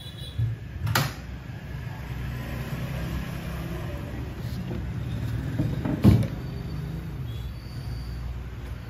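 Two sharp wooden knocks about five seconds apart, the second the louder, from subwoofer cabinet panels being fitted together, over a steady low rumble.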